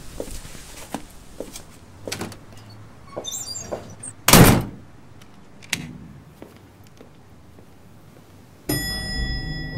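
Footsteps and a brief metallic jingle, then an apartment front door swinging shut with one loud thump about four seconds in, followed by a click of the latch. Near the end a steady elevator hum with several held tones begins.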